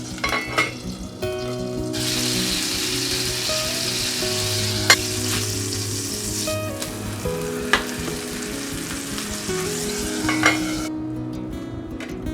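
Food sizzling in a frying pan, a steady hiss that begins about two seconds in and cuts off near the end, with a couple of sharp clicks of a utensil against the pan. Acoustic guitar music plays underneath.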